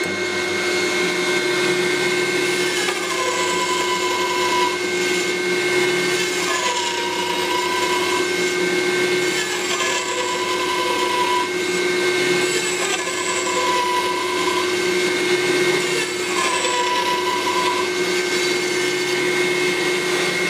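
Bandsaw blade cutting into a small wooden block five times, each cut lasting about a second and a half with a tone that sags slightly in pitch under load. Underneath is the steady whine of the running bandsaw and of a Dyson vacuum cleaner hooked up to it for dust extraction.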